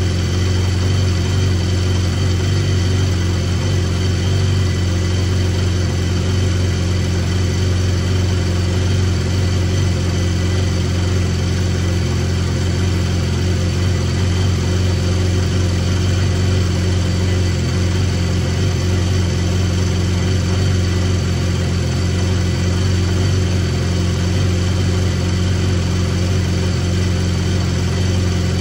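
BMW S1000R's inline-four engine idling steadily while its new manual cam chain tensioner is tweaked to quiet the cam chain noise.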